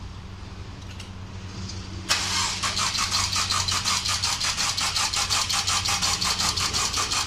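Mercedes-Benz E250 (W212) engine being cranked by its starter: a steady low hum, then about two seconds in the starter kicks in with an even, rhythmic churning that keeps going without the engine catching. It cranks but won't start, from a fuel-system fault of low fuel pressure.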